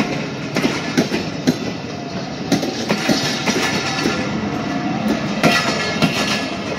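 Passenger train coaches rolling past close by, their wheels clattering over rail joints in quick, irregular clicks above a steady rolling noise.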